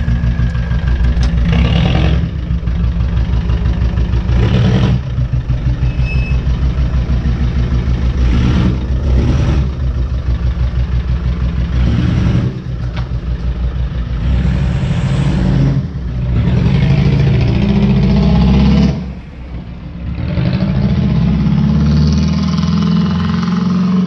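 Land Rover Discovery 300 Tdi four-cylinder turbodiesel with a straight-through exhaust, revved hard several times and then pulling away. The open exhaust makes a loud, deep engine note that rises and falls with each rev.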